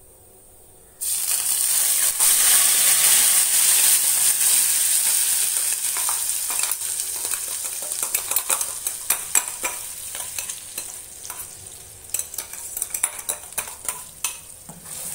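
Ground onion, tomato, ginger and garlic paste dropped into hot sesame oil in a kadai: a loud sizzle starts suddenly about a second in and slowly dies down. Short clinks and scrapes of a ladle stirring the paste run through the second half.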